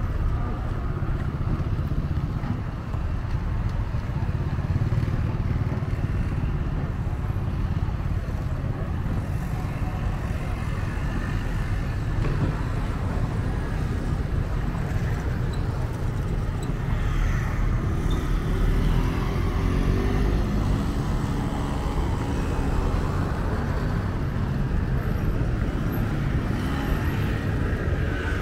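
City street ambience with a steady low rumble of motor traffic.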